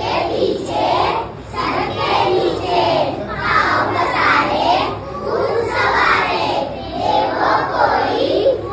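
A class of young children singing an action song together in unison, in short loud phrases with brief breaks between them.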